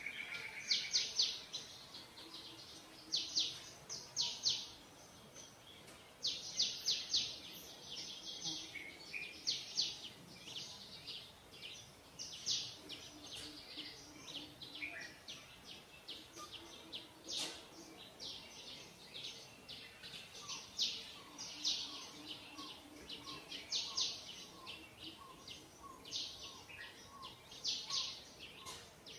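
Birds chirping: quick clusters of high chirps come again and again, joined in the second half by a steady run of short, lower notes.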